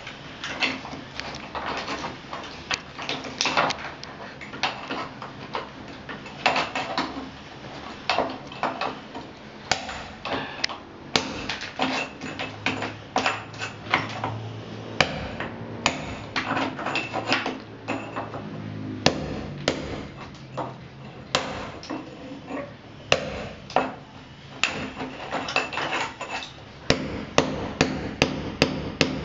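Repeated hammer strikes chipping at the concrete around an old water pipe exposed in a wall. The blows are sharp and irregular, a few each second, and come faster near the end.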